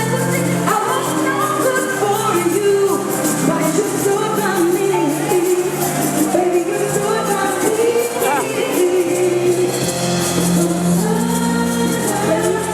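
Zambian pop song performed live over a stadium sound system: singing over a steady bass line and band accompaniment.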